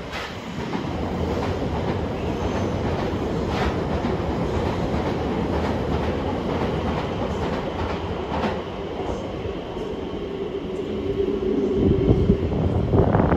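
A train running past on the tracks: a steady rumble with the occasional click of wheels over rail joints. Near the end a humming tone comes in and the sound grows louder.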